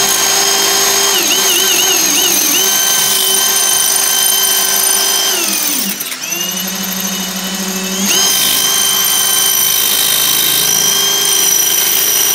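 Cordless drill running a bit against hard porcelain tile: a steady motor whine that wavers as the trigger is feathered, drops to a slower speed for about two seconds mid-way, then comes back to full speed. The bit is making no headway through the porcelain.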